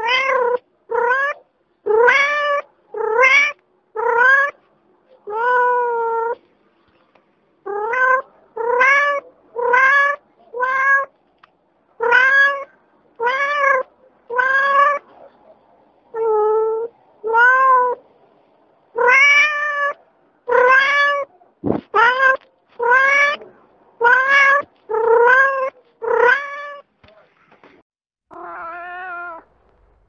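Domestic cat meowing over and over, about one loud meow a second, each call rising and then falling in pitch. A sharp click comes a little past the middle, and a lower, longer meow comes near the end.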